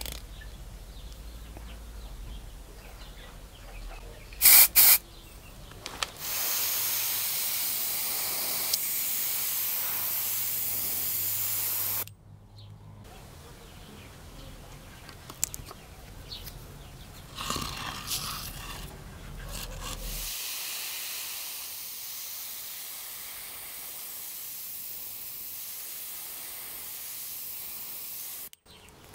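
Airbrush spraying paint in two long, even hissing passes. The first starts about six seconds in, runs about six seconds and stops sharply. The second, fainter one starts about twenty seconds in and runs almost to the end. Two sharp clicks come a little before the first pass.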